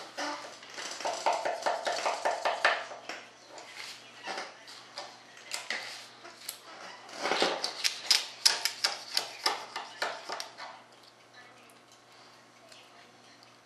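A small hand tool scraping and picking at the hardened fiberglass edge of a rudder mold: quick runs of hard clicks and scrapes, with one louder knock about seven seconds in, fading off over the last few seconds.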